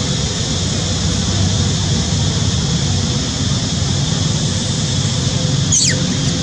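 Steady outdoor background rumble with a constant high hiss. Near the end comes a brief high squeal that falls steeply in pitch.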